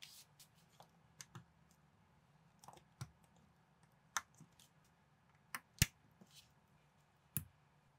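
Plastic building bricks clicking and snapping together as pieces are pressed onto a model: an irregular series of sharp clicks, the loudest a little past the middle.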